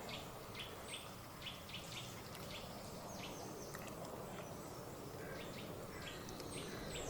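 Songbirds chirping and singing in quick, repeated short notes over a steady, faint background rush of outdoor noise.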